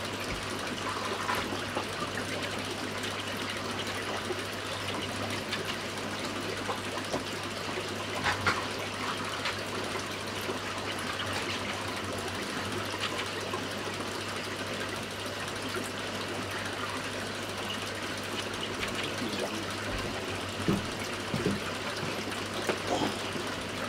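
Aquarium water circulating with a steady trickling hiss and a low steady hum, typical of a tank's filter or pump running, with a few short clicks now and then.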